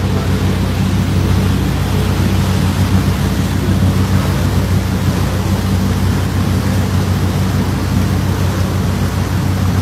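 A tour boat under way: its engine running with a steady low drone, under an even rushing noise of wind and churning wake water.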